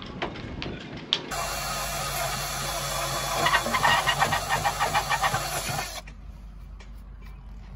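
Cordless drill/driver running for about five seconds, starting about a second in and stopping abruptly. Its motor gives a steady whine, with a rapid clicking in the second half.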